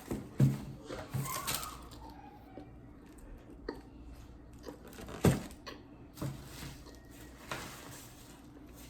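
Eating sounds close to the microphone: a person chewing and handling food, with scattered small clicks and mouth noises, a short rustle about a second in, and two louder knocks, about half a second in and about five seconds in.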